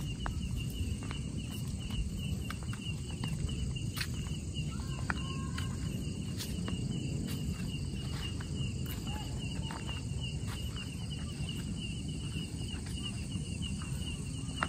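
Night insects trilling steadily in a high, fast-pulsing tone, over footsteps on a path and a low rumble.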